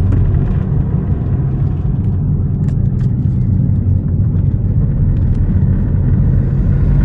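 Steady low rumble of road and engine noise inside the cabin of a Hyundai Verna 1.6 CRDi diesel saloon cruising along a highway.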